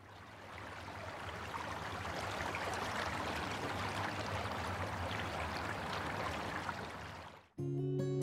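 Shallow, rocky river flowing over a riffle, a steady rush of water that fades in at the start and cuts off suddenly near the end, where acoustic guitar music begins.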